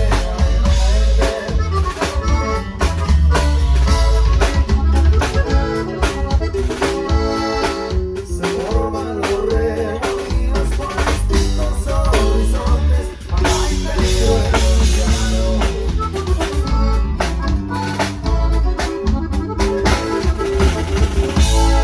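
Band playing with a drum kit and a heavy bass line, sharp drum hits coming throughout over held instrument notes.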